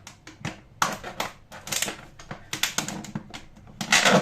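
Kitchen knife slitting olives, a quick irregular run of sharp knocks as the blade strikes through onto the surface beneath.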